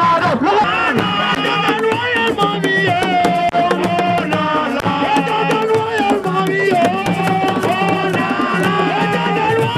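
Music with hand drums keeping a steady beat under a wavering, ornamented melody.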